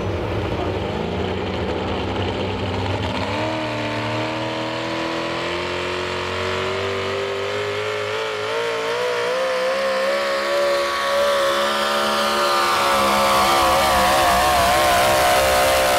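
Supercharged engine of a modified 4x4 pulling truck running hard under load on a pull, its pitch steady at first and then climbing steadily from a few seconds in, getting louder near the end.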